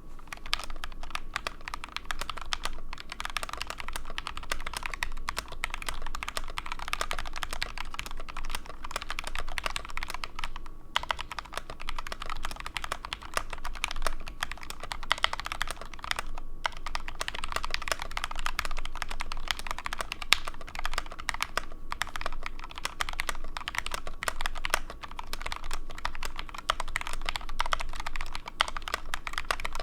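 Steady fast typing on a Nuphy TS68 mechanical keyboard with Gateron KS-3 switches lubed with Krytox 205g0 and Osume Dusk keycaps: a continuous patter of key clicks and bottom-outs, pausing briefly twice, near eleven seconds and near sixteen seconds in.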